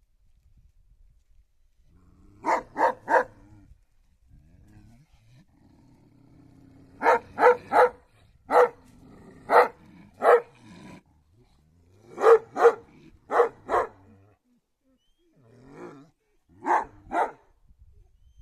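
A dog barking in short, deep bursts, mostly two or three barks at a time with pauses between, and a low rumble under some of the gaps.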